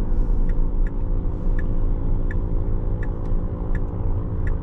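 Cabin sound of a Tesla Model S Plaid driving slowly on a highway: a steady low rumble of tyre and road noise. Light ticks repeat about every two-thirds of a second.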